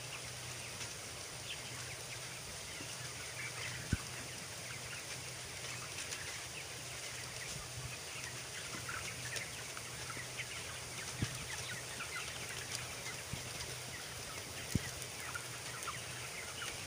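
A large flock of 20-day-old broiler chickens peeping and chirping continuously, over a steady low machine hum, with a few sharp clicks.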